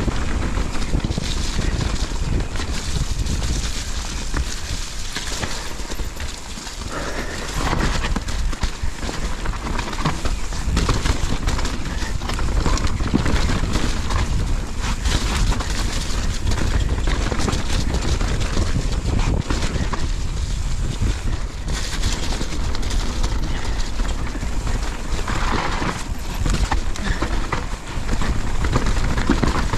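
Wind rushing over an action camera's microphone as a YT mountain bike descends a dirt trail at speed, with tyre noise and a steady clatter of knocks and rattles from the bike over rough ground.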